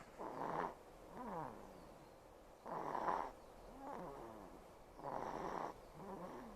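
A two-month-old baby snoring in her sleep. There are three rough, rattly breaths about two and a half seconds apart, each followed by a shorter sound that falls in pitch. The congested sound fits the uploader's guess that mucus is still left at the back of her nose.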